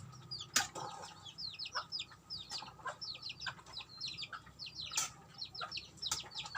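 Chicks peeping: many short, high, falling chirps in quick runs, with a few sharp clicks now and then.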